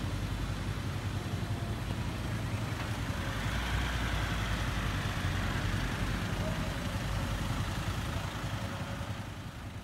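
Haew Narok waterfall: a steady, heavy rush of falling water, strongest in the low rumble, fading out near the end.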